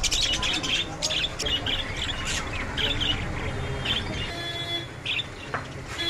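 Caged lovebirds chattering: many short, high chirps overlapping without a break.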